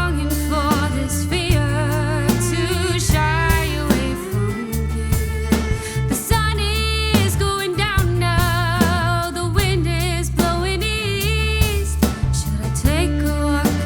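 A pop-soul song plays: a singer's voice holds and bends notes with vibrato over a bass and drum backing.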